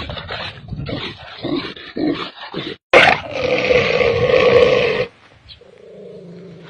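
Dog sounds in a run of short clips: rough, irregular noises for the first few seconds, then after a sudden cut a loud, drawn-out call of about two seconds, followed by a fainter steady tone.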